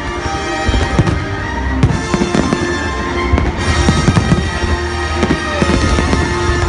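Fireworks display, shells bursting in a rapid string of bangs and crackles over continuous music.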